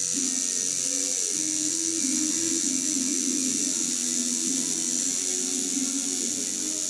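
Electric tattoo machine buzzing steadily as its needles work ink into skin, with music playing underneath.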